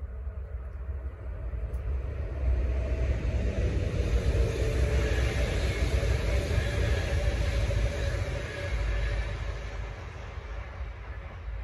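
A train passing by on the line: a rolling rumble that builds over the first few seconds, stays loud for several seconds with a faint steady whine, then fades away.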